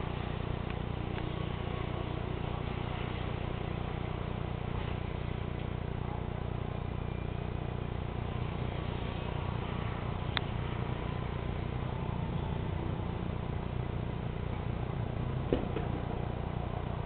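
Steady low hum of distant city traffic and ambience, with two sharp distant firework bangs, about ten seconds in and again near the end.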